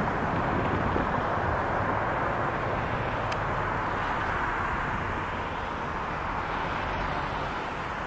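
Steady outdoor background noise: an even rushing haze over a low rumble, with no distinct calls or events.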